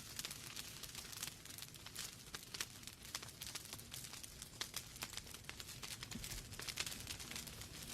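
Wood fire burning in a fireplace: logs crackling with many small irregular pops over a soft low rumble of the flames.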